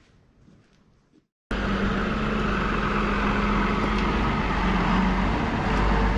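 Faint low background, then a brief dropout. About a second and a half in, an engine starts being heard abruptly at full level and runs steadily.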